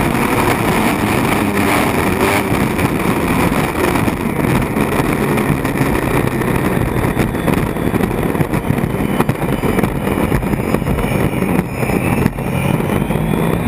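Unlimited hydroplane's turbine engine running at racing speed, heard from inside the cockpit, mixed with rushing wind and water spray striking the canopy.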